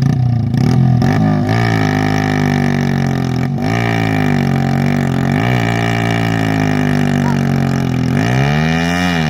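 Hero Splendor motorcycle's single-cylinder four-stroke engine working under load, its note dipping and picking up again several times, then revving up sharply and falling back near the end, as the new Apache clutch plate is tested in sand.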